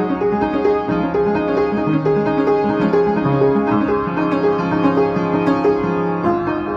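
Solo piano being played, a continuous flow of notes changing several times a second.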